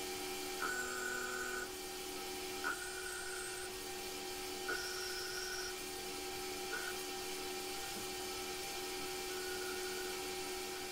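Small CNC lathe running while turning brass bar: a steady hum with several steady tones, and about every two seconds a short higher whine lasting about a second that begins with a click.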